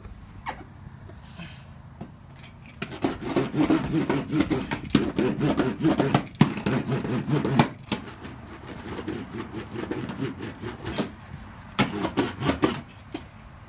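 Repeated rubbing and scraping strokes as Killmat sound-deadening mat is worked onto the van floor. The strokes are quiet for the first few seconds, dense through the middle, then return in a short flurry near the end.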